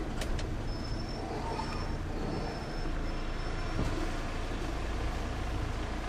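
Van engine idling, a steady low rumble heard from inside the cab, with a faint high-pitched tone coming and going over the first three seconds.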